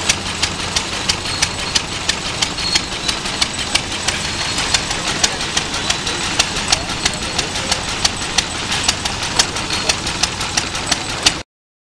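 Lister single-cylinder hopper-cooled stationary engine running, with sharp, evenly spaced exhaust beats about three times a second.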